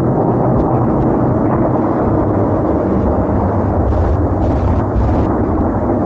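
A loud, steady, deep rumble coming from the sky, holding level without swells or breaks.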